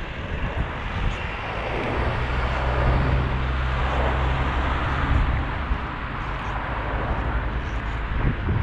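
FR325 inline skate wheels rolling over asphalt, a steady rumbling hiss that swells for a few seconds in the middle with a low hum under it.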